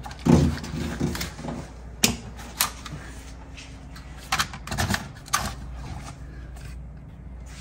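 Plastic clicks and rattling as the wiring-harness connector on an engine control unit is unlatched and worked free, with a few sharp clicks at irregular moments.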